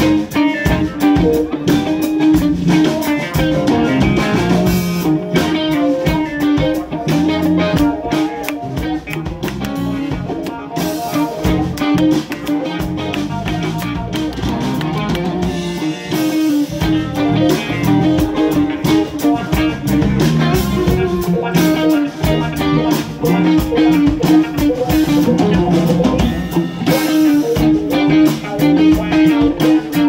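Live band playing: electric guitars over a drum kit, bass guitar and keyboards, continuous and loud.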